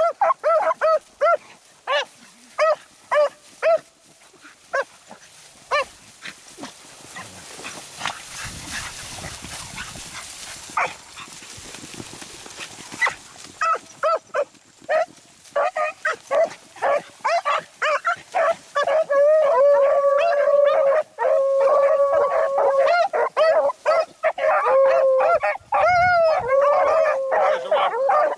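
A pack of beagles giving tongue on a rabbit's trail. There are short repeated barks at first, then a quieter stretch, then from about halfway several hounds baying together, some in long drawn-out bawls.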